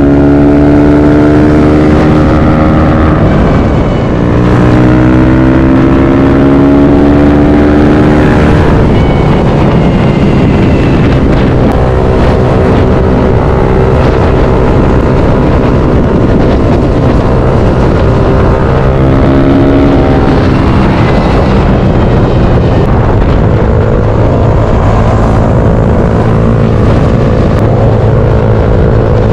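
Motorcycle engine running at freeway speed, heard from on the bike over steady wind rush; its pitch climbs steadily twice, a few seconds in and again about two-thirds through, as the bike accelerates.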